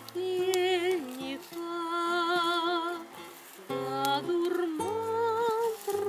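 A woman singing a slow Russian bard song to guitar accompaniment, with vibrato on her long held notes, and a short pause between phrases about halfway through.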